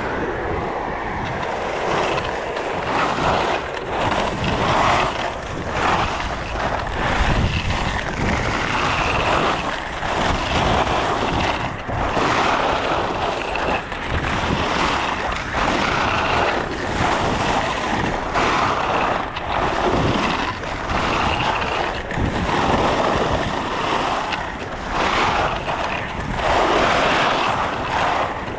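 Skis scraping and carving across groomed snow, swelling with each linked turn about every second or two, mixed with wind rushing over the microphone.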